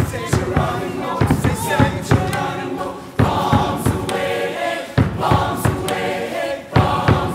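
Large mixed choir of young men and women singing an upbeat medley together, over a steady percussive beat.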